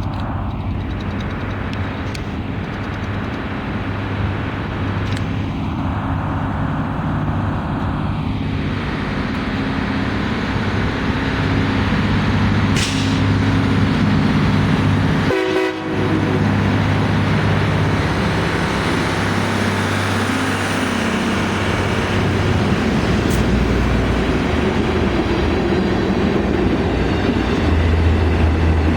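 Railroad maintenance-of-way machines running on the track with diesel engines, sounding their horns.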